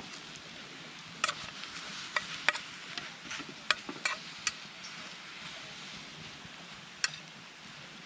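Brussels sprouts sizzling in butter and olive oil in a small camp frying pan over a campfire, with a steady hiss. A utensil stirring them clicks and scrapes against the pan, in a cluster from about one to four and a half seconds in and once more near the end.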